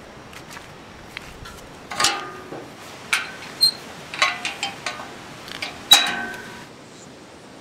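Metal farm gate's latch handled by hand: a string of metallic clanks and clinks, each ringing briefly, the loudest near the end. A steady outdoor hiss lies underneath.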